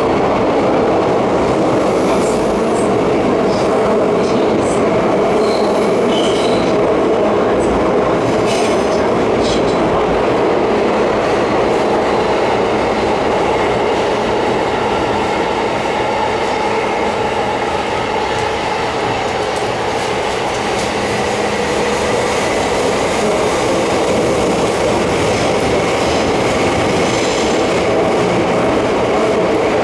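Interior running noise of a Tokyo Metro 07 series subway car, a motor car fitted with a Mitsubishi PMSM VVVF inverter, travelling through the tunnel. It is a steady rumble of wheels on rail with clickety-clack over rail joints, and a few brief high squeals of wheel against rail.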